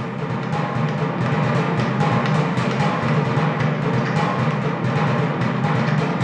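Percussion-heavy music played loud through hi-fi floorstanding loudspeakers and picked up in the room: dense, rapid drumming with deep drum tones, from an audiophile test recording.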